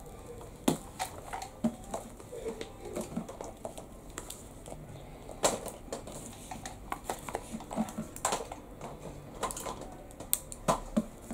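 Irregular clicks and taps of plastic surprise eggs and their wrapping being handled. Near the end, scissors snip at an egg's wrapper.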